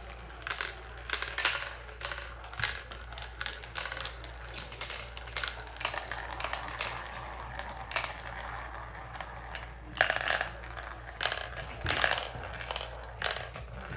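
Marbles rolling and clattering down a marble run: a continuous stream of irregular sharp clicks and rattles, with louder clusters of clacks about ten and twelve seconds in.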